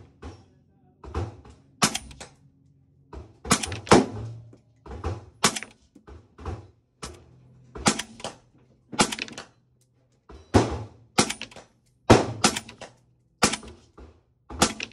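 FN SCAR 16S rifle firing .223 rounds semi-automatically through a Nomad L suppressor, a string of sharp shots about one every half-second to second, each with a brief ringing tail.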